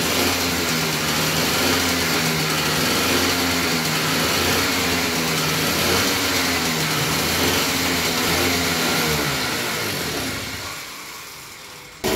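Mini dirt bike's small pull-start engine running, its revs rising and falling unevenly under the throttle; it has just been brought back to life after a carburettor cleaning. The sound fades out near the end.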